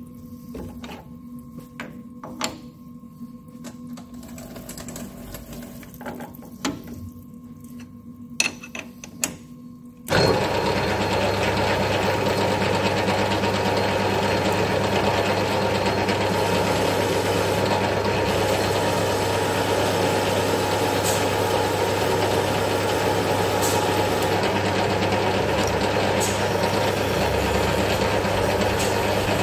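Metal lathe stopped, with a few sharp clicks and knocks of tooling being handled. About ten seconds in, the lathe starts suddenly and runs at a steady speed with an even mechanical hum.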